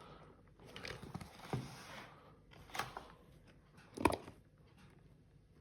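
Packaging being handled while a box is opened: rustling, then a few sharp clicks and knocks, the loudest about four seconds in.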